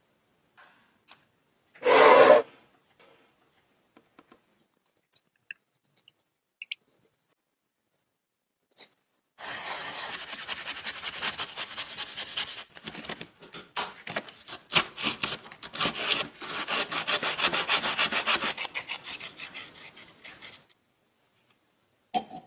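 Rapid back-and-forth abrasive rubbing strokes, like a part being hand-sanded or filed, running for about eleven seconds from roughly nine seconds in. It is preceded by a short, loud scrape about two seconds in and a few small scattered clicks.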